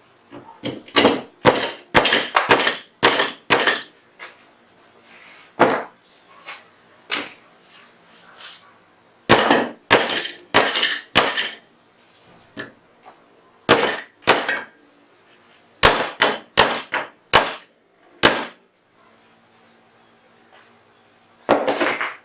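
Irregular sharp taps and knocks of metal tools against the steel parts of a Zigana 36 pistol being taken apart. Some come singly and some in quick runs, with a few short pauses.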